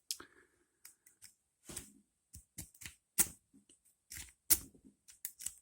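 Lock pick being zipped across the pin tumblers of an ASSA Rune 2 padlock under tension: a series of sharp metallic clicks and scrapes, irregular, with the loudest ones a little past halfway.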